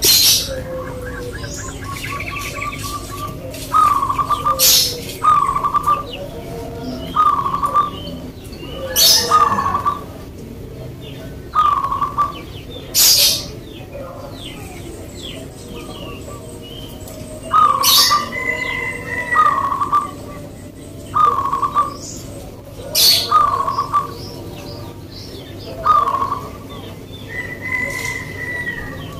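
Caged zebra doves (perkutut) singing: a run of short, repeated cooing notes about every one to two seconds, with sharp high chirps mixed in.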